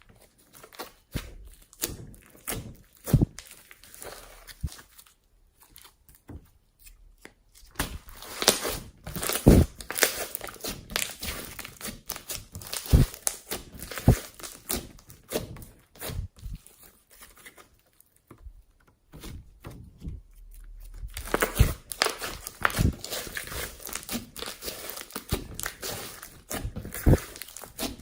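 Hands squeezing, stretching and poking slime, giving irregular crackling, squishing and popping sounds with occasional soft thuds.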